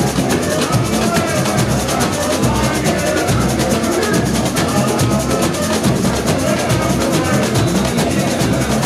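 Samba school bateria playing a dense, steady samba rhythm: surdo bass drums, snare drums and tamborins, with a guitar in the mix.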